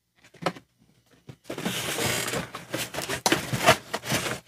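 Cardboard box and packaging handled: rustling and scraping with small knocks as the large toy jet is worked out of its box, starting about a second and a half in after a nearly quiet start.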